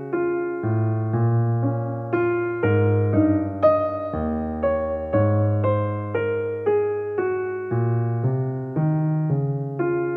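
Background piano music: a slow, gentle piece of notes and chords struck about twice a second, each fading before the next.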